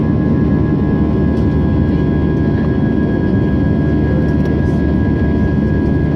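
Aircraft cabin noise: a steady, loud engine and airflow drone heard from inside the passenger cabin, with a thin steady whine on top.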